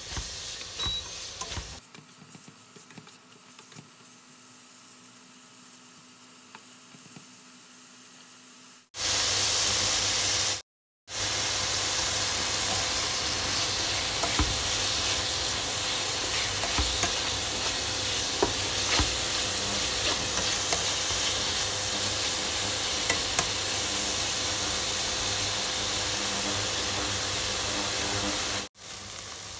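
Chicken strips sizzling in a non-stick frying pan while a spatula stirs and turns them, scraping and tapping against the pan. The sizzle is quieter for the first several seconds, then louder and steady after a brief break about eleven seconds in, with scattered small taps throughout.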